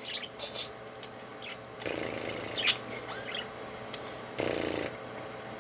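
Pet budgies chirping in short sweeping calls, with two brief, harsher noisy bursts about two seconds and four and a half seconds in.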